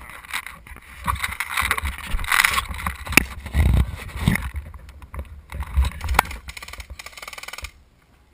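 Rustling, bumping and wind rubbing on a camera mounted on an airsoft gun as it is carried and moved, with low thumps and a couple of sharp clicks. The noise drops away suddenly shortly before the end.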